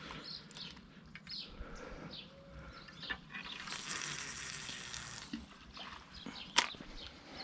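Small birds chirping in many short, high calls, with a brief rush of noise a little past the middle and a sharp click near the end.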